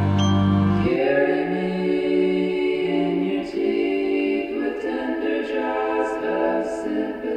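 Song with layered, choir-like singing voices in close harmony. A low sustained tone underneath cuts off about a second in.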